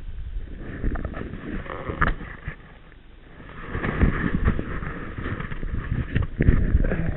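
Irregular low rumbling from wind and handling on a cheap head-mounted camera's microphone, with sudden knocks and a rustle as the wearer moves his head and body.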